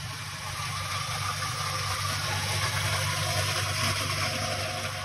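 Fruit grinder's electric motor running with a steady hum while it crushes apples, a gritty grinding hiss swelling in the middle.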